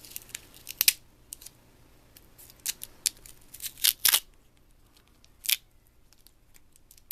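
Thin plastic cover being peeled off a Palm Pilot PDA's screen assembly: a scattering of sharp crackles and snaps, loudest in a cluster about four seconds in.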